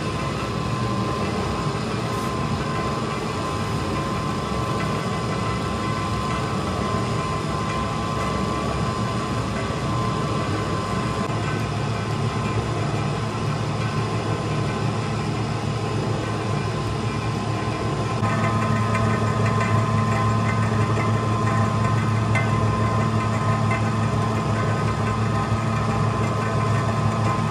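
Large industrial dough mixer running steadily, its motor and drive giving a low hum while the arm churns flour and water in the rotating steel bowl. The hum grows a little louder about two-thirds of the way in.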